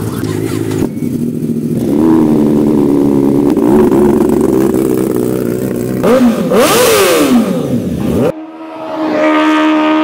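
1000 cc superbike engines with aftermarket exhausts being revved while parked. A steady fast idle rises about two seconds in and is held. Then, about six seconds in, the Honda CBR1000RR-R Fireblade gets two sharp throttle blips that rise and fall in pitch. It cuts off suddenly near the end into a held electronic logo tone.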